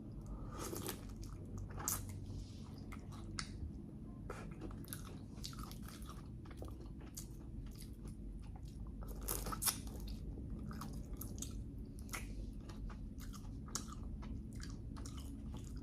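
A person chewing food close to the microphone, with irregular crunches and small mouth clicks; the sharpest crunches come about 2 seconds in and again around 9 to 10 seconds.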